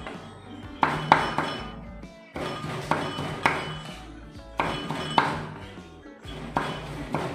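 Cleaver chopping on a wooden chopping board, mincing a soft fish-paste and herb mixture, in clusters of quick knocks about every two seconds. Background music plays under the chopping.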